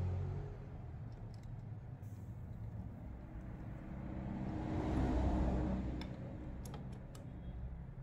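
Low vehicle rumble that swells up and fades away about five seconds in, with a few sharp clicks of parts or tools being handled near the end.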